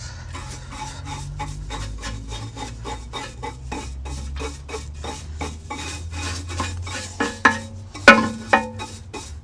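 Rapid rasping scrapes, about four a second, as leftover ash is worked out of a ceramic kamado grill's firebox. A few louder ringing metal clanks come about eight seconds in.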